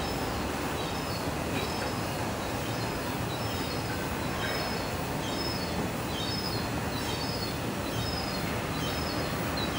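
Small birds chirping, short high notes repeating about once or twice a second, over a steady outdoor hiss of ambient noise.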